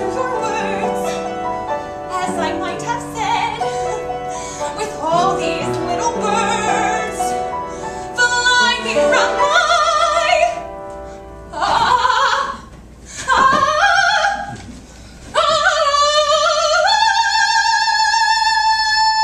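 A woman singing in operatic soprano style. Quick vocal runs with short breaks lead into a final high note that steps up once and is held with vibrato to the end.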